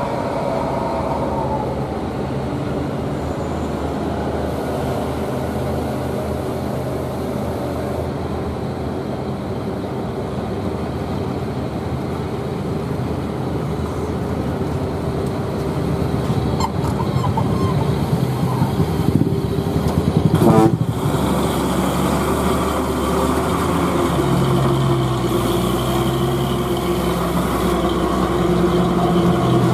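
Diesel engine of a loaded old Toyota dump truck labouring as it climbs a steep gravel hill and passes close by. It grows louder about halfway through, with a brief louder burst about twenty seconds in.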